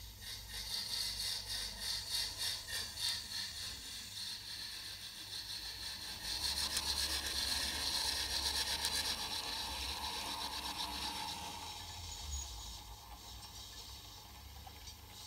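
Model LMS Beyer-Garratt locomotive running along the track, with the high whine of its small electric motor and gearing and a rapid, even ticking. It is loudest from about six to ten seconds in and then fades.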